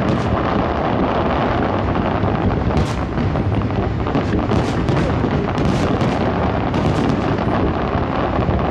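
Aerial fireworks bursting: a continuous rumble of booms, with sharper cracks about once a second from around three seconds in.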